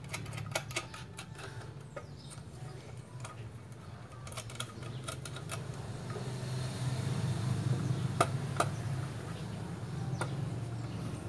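Scattered light clicks and knocks of a small electric motor's metal mounting bracket being handled and adjusted by hand on a wooden board, over a low steady hum.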